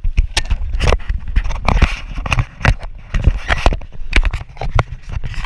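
Towed inflatable tube slapping and bumping over the lake's chop at speed: an uneven run of sharp knocks and scrapes with wind buffeting the camera's microphone underneath.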